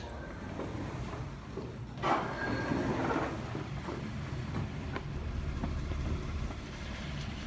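Steady low road rumble inside a moving car, with a louder stretch about two seconds in and a few faint clicks.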